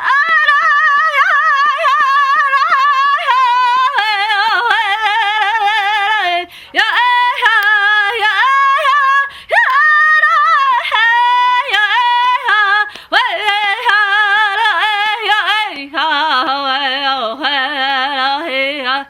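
A woman singing a Native American song solo in a high voice, in long phrases with wavering, sliding ornaments and short breaks for breath; about three-quarters of the way through the melody drops to a lower register.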